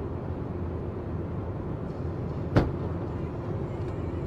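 Steady road and engine noise inside a moving car, broken about two and a half seconds in by one sharp, loud bang: a tyre bursting on the truck ahead.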